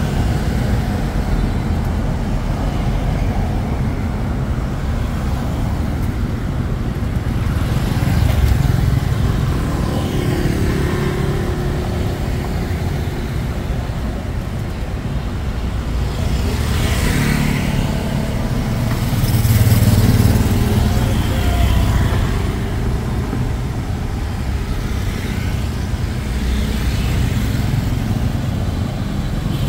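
Steady city street traffic with motorbike and car engines passing close by, as a low rumble with a few louder swells, the largest about two-thirds of the way through.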